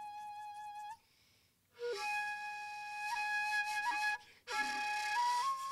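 Shakuhachi, the end-blown Japanese bamboo flute, playing long held notes with a breathy tone. A note ends about a second in, and after a short pause a new note is scooped up from below and held with brief grace-note flicks. After another short break, the last phrase steps up in pitch.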